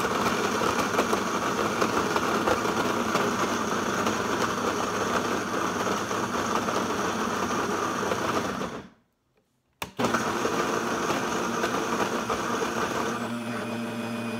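Vitamix blender running on a thick avocado-and-cashew sauce, then stopping about nine seconds in; after a second's pause and a click it starts again and runs on.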